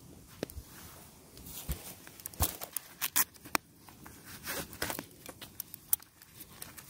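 A cloth wrap rustling and crinkling as it is pulled off a metal blade, with scattered sharp clicks and taps from the handling, the loudest a few in quick succession a little after two seconds in.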